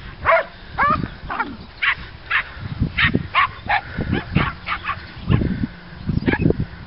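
Dogs barking over and over, about two short barks a second, thinning out near the end.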